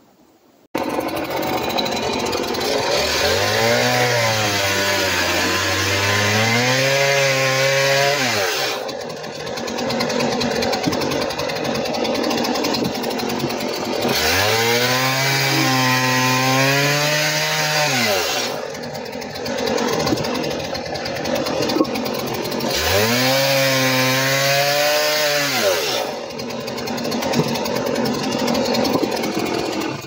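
Petrol chainsaw cross-cutting birch logs, three cuts. Each time the engine revs up, its pitch sags as the chain bites into the wood, climbs higher as it breaks through, then falls back to a steady lower running note between cuts.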